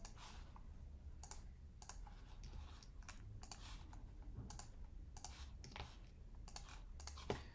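Faint, irregular clicks from a computer mouse and keyboard, about a dozen of them, over a low steady hum.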